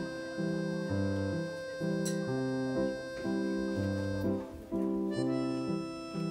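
Background music: a light instrumental tune with a melody over a bass line that changes note about twice a second.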